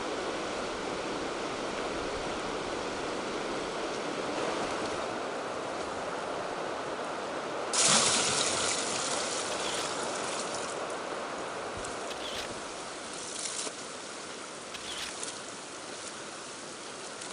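Steady rush of a shallow river. About eight seconds in, a bucket of water is poured into a large aluminium pot, a sudden loud splashing that fades over a couple of seconds.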